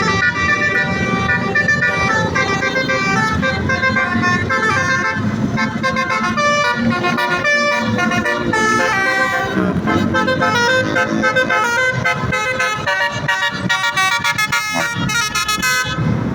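Basuri horn, a multi-tone musical vehicle horn, playing a melody of stepping notes in the 'telolet' style, quicker and choppier near the end, over a low rumble.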